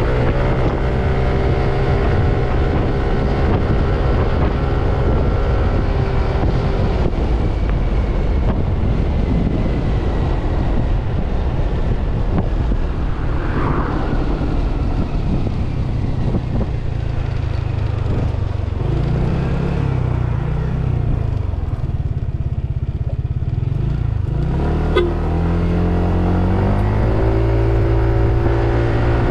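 Yamaha NMAX scooter's single-cylinder engine running under way, with a steady rush of wind and road noise. In the last third the engine pitch dips and then climbs again as the speed changes, and there is one small click near the end.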